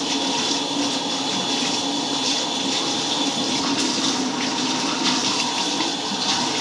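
Tap water running steadily and splashing as semi-permanent hair color is rinsed out of hair.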